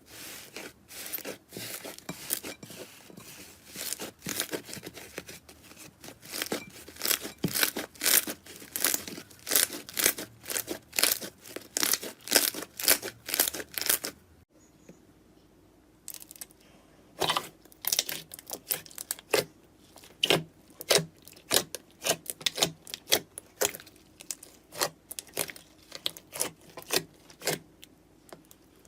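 Slime being squeezed and pressed by hand, giving rapid, irregular crackling pops and clicks. The sound breaks off briefly about halfway, then resumes.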